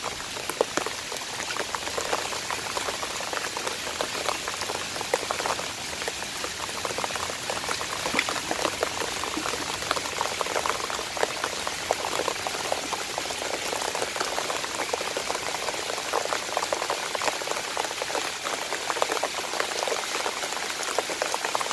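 Steady patter of rainwater, a dense run of small drops and splashes.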